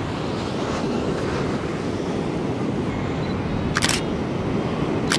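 A DSLR camera shutter clicking twice, about a second and a half apart, over a steady wash of surf.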